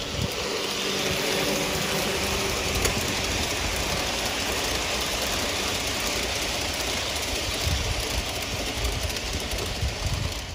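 G-scale model train running on garden track: a steady rumble and hiss.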